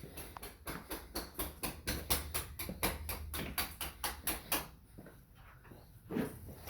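Rapid light tapping, about five knocks a second, that stops about four and a half seconds in: a hammer and chisel chipping at the mortar around a window opening while an old window is removed.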